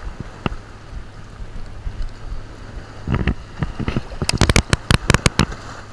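A released summer flounder splashing back into shallow saltwater: a quick run of sharp splashes from about three to five seconds in. Steady wind and lapping water on the microphone lie under them.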